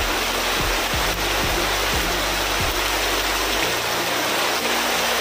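Heavy rain pouring steadily, a dense hiss, with background music carrying a low, regular beat underneath; the music's bass changes about three and a half seconds in.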